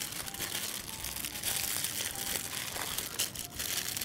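Aluminium foil being folded and crumpled around a food parcel: a run of irregular crinkling crackles.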